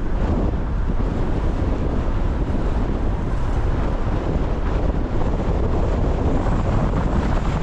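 Storm wind buffeting the microphone, a steady dense rumble mixed with street traffic noise.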